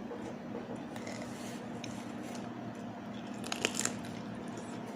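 A person biting and chewing food close to the microphone, with a few sharp crunches about three and a half seconds in. A steady low hum runs underneath.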